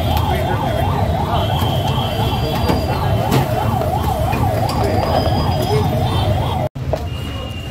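Electronic siren warbling steadily, its pitch rising and falling about three times a second over a low rumble, cutting off suddenly near the end.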